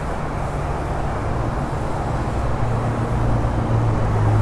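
Traffic on a busy road below: a steady rush of passing vehicles, with a low engine drone that swells from about halfway through and is loudest at the end.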